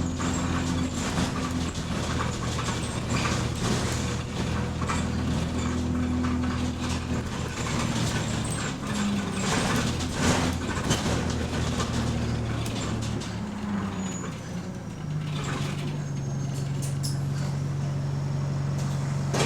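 Diesel bus engine running under way, heard from inside the passenger cabin with road noise and interior clicks and rattles; about fifteen seconds in, the engine note changes to a steadier hum.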